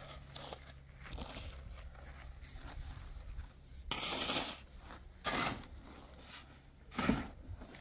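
Shovel blade scraping and digging into gravelly dirt in several short strokes, the loudest near the end.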